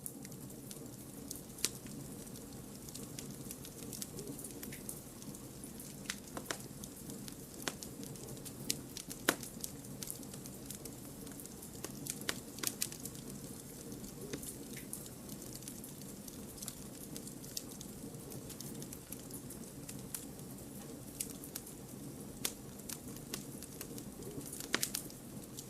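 Campfire of burning firewood logs crackling steadily, with scattered sharp pops and snaps over a low, soft rumble of the flames.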